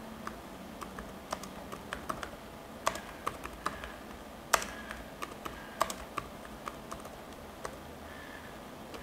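Typing on a computer keyboard: irregular, fairly quiet keystroke clicks, with one louder key strike about halfway through.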